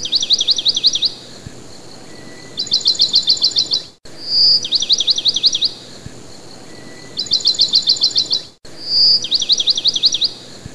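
Songbird singing: a high held whistle, then a quick run of falling notes and, after a pause, a faster trill. The same phrase comes three times, each cut off abruptly.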